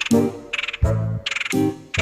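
Music made of short, separate pitched notes with brief gaps between them, in a jumpy, stop-start rhythm.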